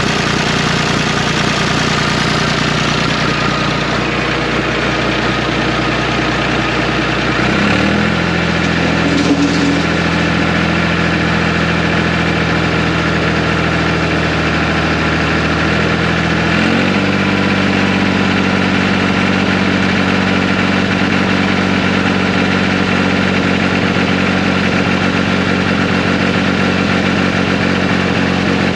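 1974 John Deere 350B crawler dozer's diesel engine running steadily. Its pitch steps up about eight seconds in and again about seventeen seconds in.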